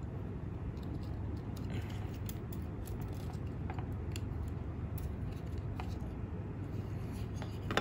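Faint small clicks and ticks of plastic circuit boards and jumper-wire connectors being handled as a CNC shield is fitted onto an Arduino Uno, over a steady low hum. A sharper click comes right at the end.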